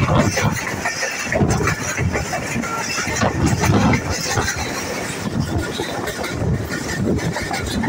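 Passenger train running along the track, heard from an open coach window: a steady rumble of the wheels on the rails, with uneven surges of wind noise.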